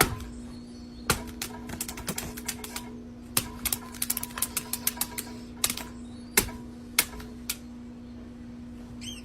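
Rapid, irregular sharp clicks and taps in quick clusters, over a steady low hum.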